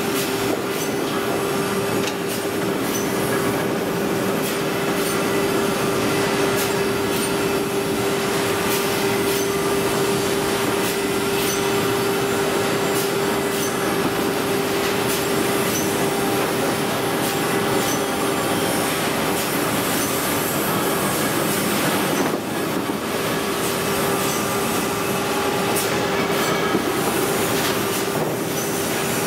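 Steel rebar hot-rolling mill running, with red-hot bar passing through the roll stands. It makes a loud, steady mechanical din with a constant hum, and scattered metallic clicks and knocks on top.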